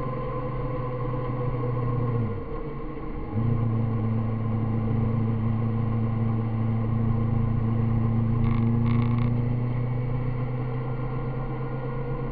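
Road vehicle's engine running steadily at cruising speed, with a steady rushing noise of travel under it. About two seconds in the engine note drops away for about a second as the throttle comes off, then picks up again and holds steady.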